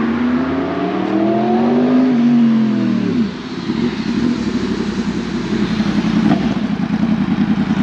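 2022 Yamaha YZF-R1's crossplane inline-four engine through a decat titanium KO exhaust: the revs climb for about two seconds and drop back, then it settles to a loud, rapidly pulsing idle.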